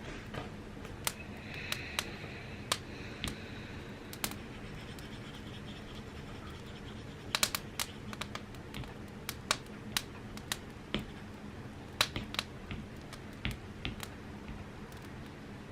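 Typing on an Apple keyboard: sparse, irregular key clicks, some in quick little runs, over a steady low hum.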